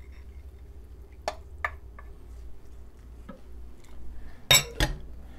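Cooked crumbled sausage scraped with a spoon from a glass bowl into a skillet of rice and tomatoes, with soft squishing and a few light taps, then two sharp knocks about four and a half seconds in.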